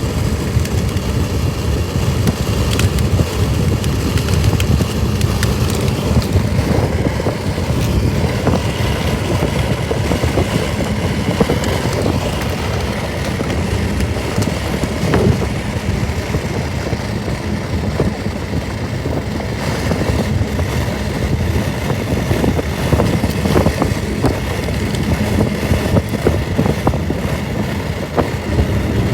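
Loud, steady rumble of a moving road vehicle, with scattered small clicks and knocks over it.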